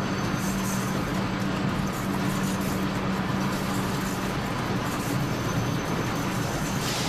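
Electric train running along the track: a steady rumble of wheels on rail with a constant low hum underneath. A brief high hiss comes near the end.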